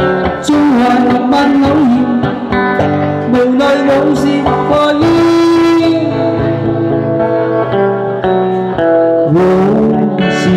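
Live small-band music: two guitars strummed and picked through a PA under a held melody line that bends in pitch, in a passage between sung lines of a Cantonese ballad.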